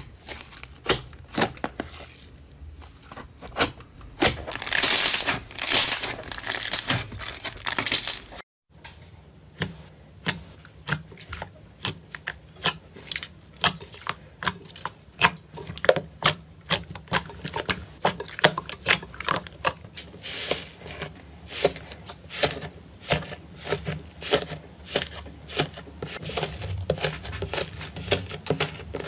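Hands squeezing, stretching and poking slime, making a steady run of sharp wet pops and clicks, several a second, as air pockets burst. There is a denser crackling, squishing stretch about a quarter of the way in, then the sound breaks off for an instant and the popping resumes.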